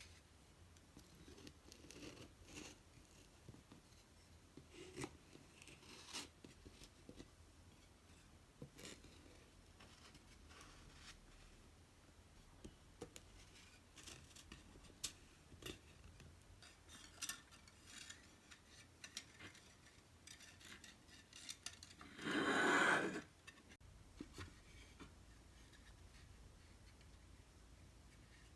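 Quiet handwork sounds: scattered light clicks, taps and rustles, with one louder rasping rustle lasting about a second near the end.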